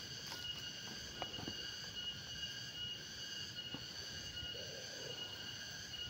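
Steady high-pitched drone of an insect chorus, holding several even pitches without a break, with a few faint rustles and snaps in the first seconds as vegetation is pushed aside.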